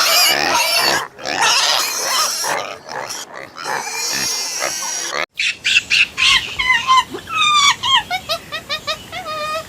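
Pigs squealing and grunting loudly. About five seconds in, the sound cuts to a run of short, high, repeated peeping calls, several a second, each dropping in pitch.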